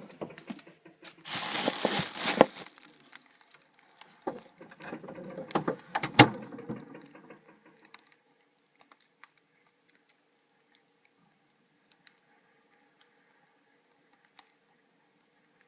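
Rustling and clattering of objects being handled, with several knocks and a sharp thud about six seconds in. After about eight seconds it goes very quiet, leaving only a faint steady hum and a couple of small clicks.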